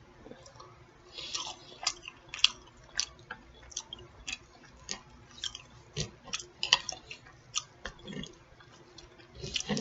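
A person chewing food with irregular wet mouth clicks and smacks, about two a second.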